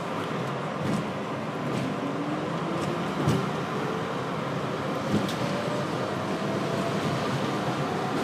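R62A subway car running on elevated track: a steady rumble of wheels on rails, with a few sharp clacks over rail joints and a faint whine rising in pitch.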